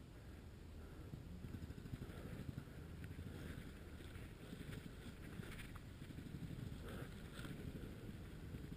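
Footsteps crunching and rustling through dry leaf litter and undergrowth, with scattered crackles of twigs and leaves over a low rumble of movement on the microphone.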